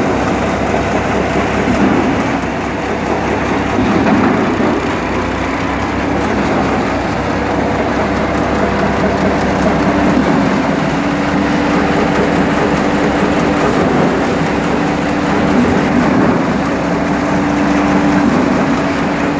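A tractor-driven Dasmesh paddy thresher running under load as rice sheaves are fed in: a loud, steady mechanical din of the threshing drum and the tractor engine, with a steady hum underneath.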